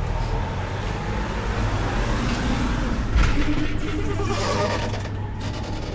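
Street traffic: a motor vehicle's engine rumbling steadily as it runs past, with a brief low thump about three seconds in.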